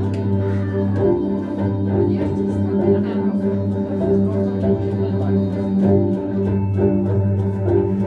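Ambient music played live: sustained organ-like chords held over a steady low drone.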